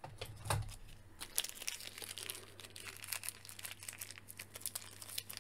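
Thin clear plastic bag crinkling and crackling in quick, irregular crackles as fingers pull and twist at it, trying to open it. A soft thump about half a second in.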